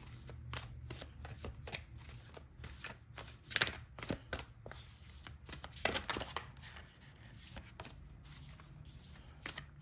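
A deck of cards being shuffled by hand: a run of irregular soft flicks and taps, over a faint low steady hum.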